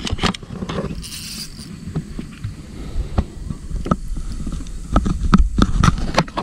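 Irregular knocks and clicks of fishing gear being handled while a hooked fish is reeled in, over a low rumble of wind on the microphone, with a short hiss about a second in.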